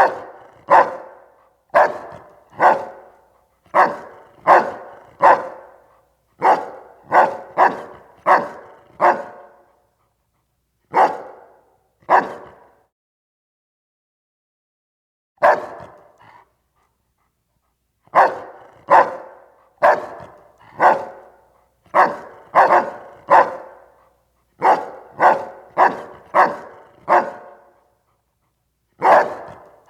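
Doberman puppy barking over and over: short, separate barks, mostly about one a second, broken by a few pauses of one to three seconds.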